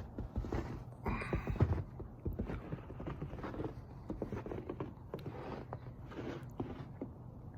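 Footsteps in snow, a person walking at an even pace, about two steps a second.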